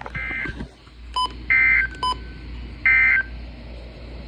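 Three short bursts of Emergency Alert System SAME digital data tones, a rapid warble between two pitches, about a second and a half apart. They are the end-of-message signal that closes a NOAA Weather Radio warning.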